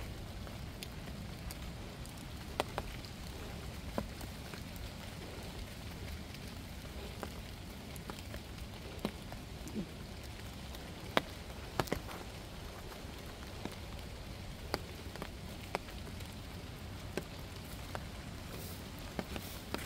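Scattered raindrops ticking now and then at irregular moments over a steady low background hiss of the wet outdoors after rain.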